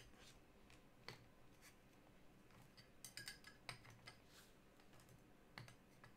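Faint, scattered light clicks and plastic rustles as trading cards and plastic card holders are handled on a table.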